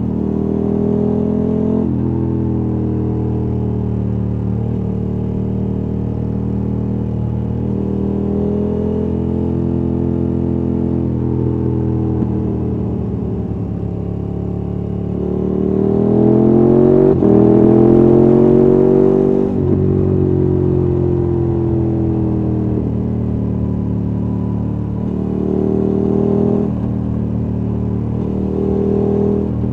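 KTM 1290 Super Adventure S V-twin engine through an aftermarket Wings exhaust, heard from the rider's seat while riding. The note holds fairly steady with small shifts in pitch. About halfway through it climbs in pitch and gets louder, then drops abruptly.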